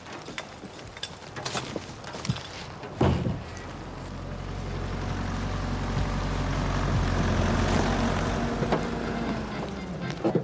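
Engine of a Nissan Primera sedan running as the car drives up, growing louder to a peak late on and easing off near the end. A few light clicks come early, and a single sharp thump about three seconds in.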